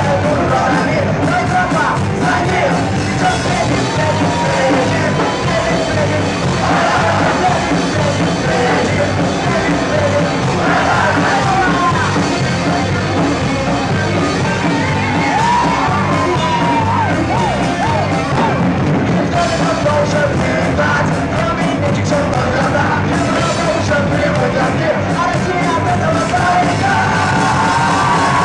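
Live rock band playing with a loud, steady full-band sound, a singer shouting and singing the vocal line over it.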